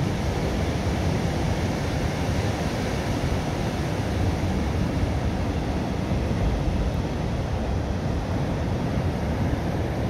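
Steady rush of wind and ocean surf, with a low rumble of wind buffeting the microphone; no distinct events stand out.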